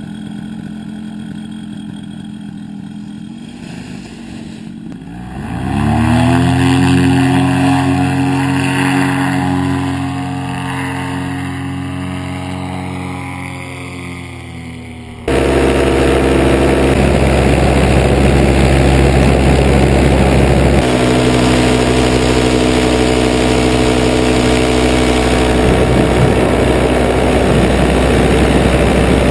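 Paramotor engine and propeller idling, then throttled up with a rising pitch about five seconds in and held at high power, growing slowly fainter. After an abrupt cut it runs loud and steady at flying power, heard up close from the harness.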